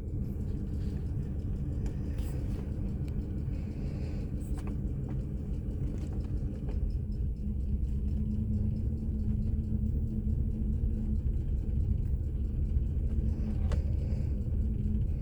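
2006 Ford F-150's Triton V8 idling steadily with a low rumble, just after a PCM reset while the computer relearns its settings. A few faint clicks can be heard over it.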